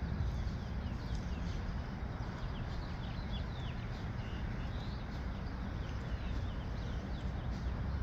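Steady rushing of a fast-flowing river, with many short bird chirps scattered over it.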